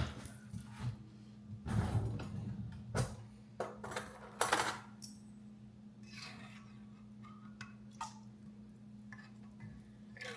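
Kitchenware clinking and scraping: a run of short knocks and scrapes of utensils against a pot and containers, busiest in the first five seconds and fainter after. A steady low hum runs underneath.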